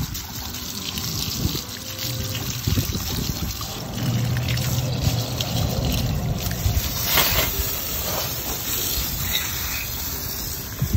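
Garden hose spray nozzle spraying water onto a muddy knobby rear tire, with a steady hiss and the water splashing and spattering off the wheel onto wet ground.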